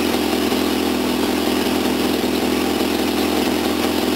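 Toyota 4K inline-four engine, fitted with a Weber 32/36 DGV twin-choke carburettor, running steadily at an even idle. It cuts off right at the end.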